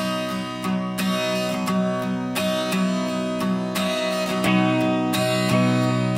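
Background music: a song carried by strummed guitar chords, repeating at an even pace.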